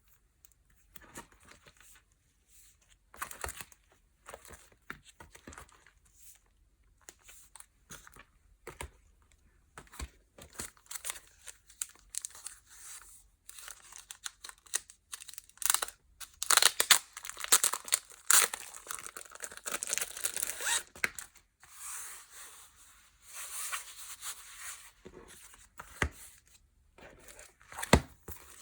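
Packaging being unwrapped by hand: irregular crinkling and tearing, with a denser, louder stretch of rustling a little past the middle and two sharp clicks near the end.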